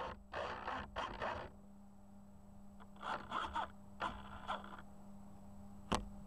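Scraping and rustling handling noise on a model airplane's onboard camera as the plane is carried through grass, in two short clusters, then a single sharp click near the end. A faint steady hum runs underneath.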